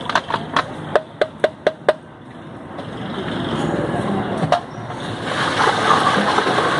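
A quick run of about eight sharp clicks in the first two seconds as a plastic syrup bottle is squeezed out over a steel pot of iced green drink. Then a long metal ladle stirs the ice and liquid in the pot, sloshing and churning.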